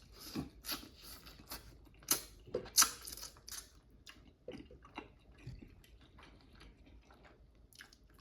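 Close-up eating sounds: a person chewing food with wet smacks and clicks of the mouth, busiest in the first few seconds and sparser after.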